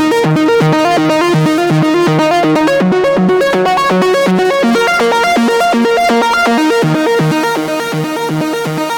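Electronic music: a synthesizer playing a quick, repeating sequence of pitched notes, getting a little quieter near the end.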